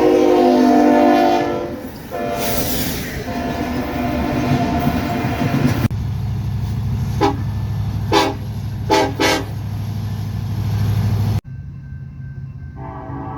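Train horns: a loud multi-note chord horn sounds long blasts, then the sound switches abruptly to a low locomotive rumble with four short sharp blasts. After a second abrupt change, another chord horn starts near the end.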